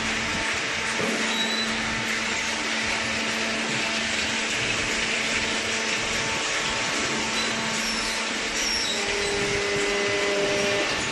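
Cardboard shredding and baling machinery running steadily: a constant mechanical whir with a low, even hum, and a second hum joining about nine seconds in.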